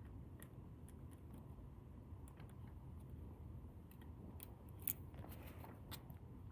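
Faint small clicks and scrapes of a disc-detainer pick working the discs inside an ASSA Desmo lock, with one sharper click about five seconds in and a short scratchy stretch just after.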